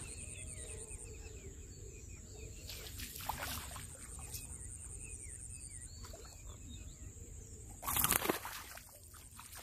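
Snakehead fish splashing briefly at the water's surface about eight seconds in as it is hauled out on the line, over a steady low wind rumble and small birds chirping.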